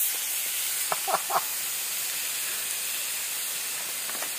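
Steady hiss of food cooking over a campfire, with three short clicks about a second in.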